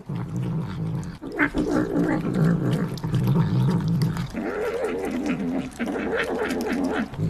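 A cat growling low and steadily, breaking into a wavering yowl about four seconds in.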